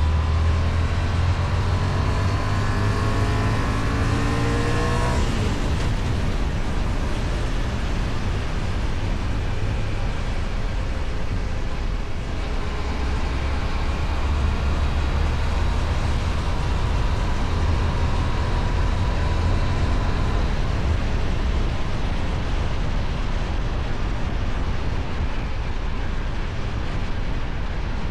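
Kove 625X Adventure motorcycle with its stock exhaust, heard on the move: the engine note rises for the first five seconds as it accelerates, then sits under a steady rush of wind and road noise. It climbs gently again from about twelve seconds in.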